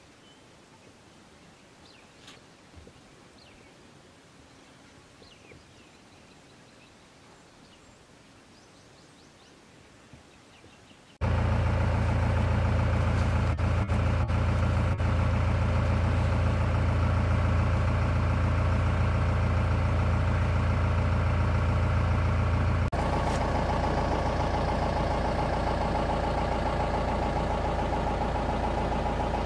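Faint open-air quiet with a few faint chirps. Then, abruptly, a vehicle engine idling steadily and loudly, a low even hum that shifts slightly in tone later on.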